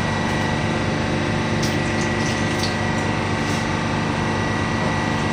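Steady machinery drone with a constant hum, and faint splashes of soy sauce being poured from a bottle into a metal pot.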